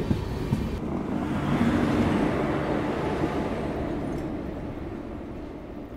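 Running train: a steady rumble and rushing of wheels and air that swells about two seconds in and then slowly fades.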